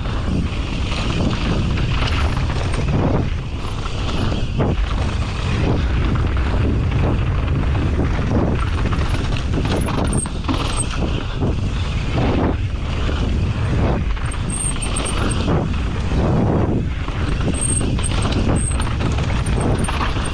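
Mountain bike ridden fast down a dirt and rock trail: tyres rolling and chain and frame rattling, with frequent knocks from bumps, over a steady low rumble.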